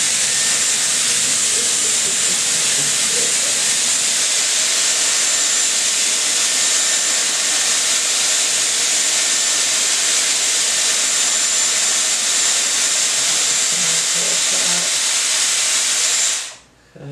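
Dyson Airwrap running with its curling barrel: a steady rush of air with a thin, high whine. It switches off abruptly near the end.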